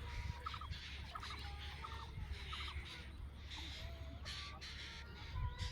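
Birds calling in short, repeated clusters of quick notes over a steady low rumble.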